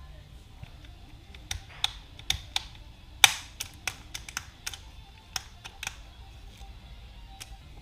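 Sharp plastic clicks and taps, about a dozen at irregular spacing, from a freshly reassembled GM truck multifunction (turn signal) switch being handled; the loudest, a snap about three seconds in, rings briefly.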